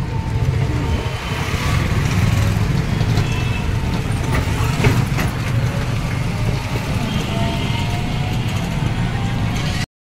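Steady low rumble of road and wind noise from riding in an open-sided rickshaw through town traffic, with a brief knock about five seconds in.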